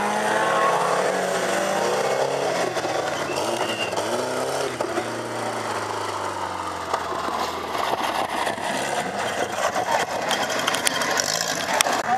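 Banger-racing cars' engines running and revving on a dirt track, the pitch rising and falling over a steady rush of tyre and track noise. Several short knocks and clunks come in the second half.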